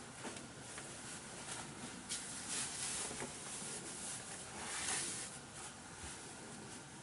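Soft rustling of hands moving through long hair over a steady room hiss, with a couple of short swells of rustle midway.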